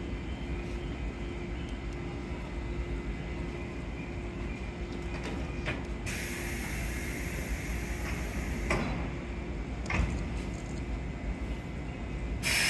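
JR 185 series electric train standing at a platform with a steady low hum. A hiss runs for a couple of seconds about halfway through, followed by two short knocks, and a louder high hiss starts just before the end as the train gets ready to pull away.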